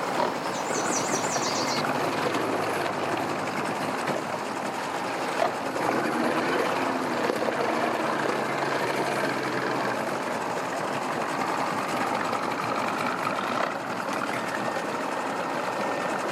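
Boat engines running at idle and low speed, a steady mechanical din, with a brief run of high chirps about half a second in.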